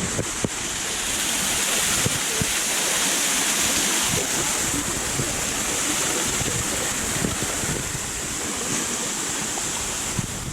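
Small waterfall: water rushing and splashing in a steady, even rush.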